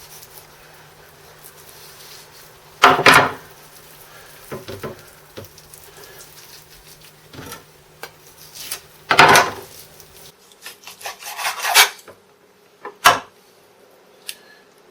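Kitchen knife cutting meat from a turkey drumstick bone, with rubbing and scraping and a few loud knocks and scrapes, the loudest about three, nine, twelve and thirteen seconds in.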